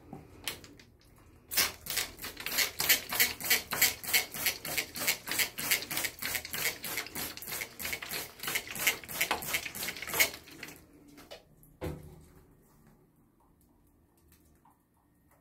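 A trigger spray bottle squeezed rapidly, about three to four sprays a second for around nine seconds, each squeeze a short hiss of mist. A single knock follows near the end.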